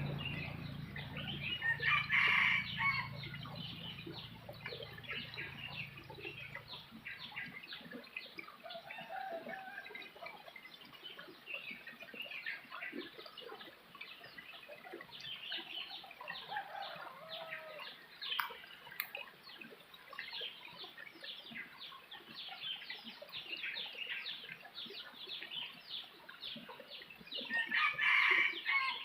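Rooster crowing twice, about two seconds in and again near the end, over continuous chirping of small birds. A low hum underneath stops about seven seconds in.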